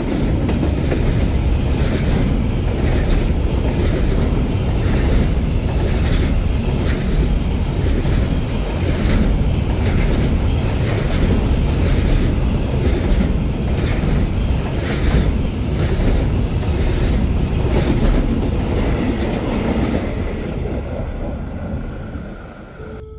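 Container freight train passing close by: a steady low rumble of rolling wagons with a regular clickety-clack of wheels over rail joints, fading away over the last few seconds as the end of the train goes by.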